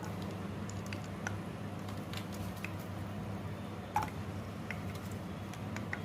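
Scattered faint crackles and pops, with one louder pop about four seconds in, from garlic cloves in mustard oil in a kadhai. A steady low hum runs beneath them.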